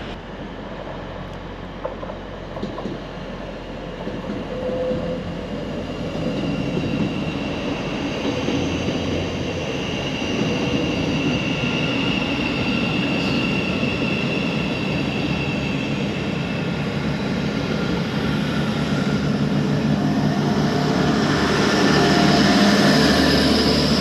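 Class 180 Adelante diesel multiple unit approaching on the line, growing steadily louder, with a high steady squeal through the middle.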